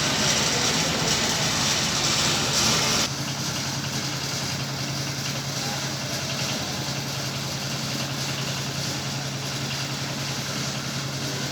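Loud rushing vehicle noise that cuts off suddenly about three seconds in, followed by a steady low engine hum.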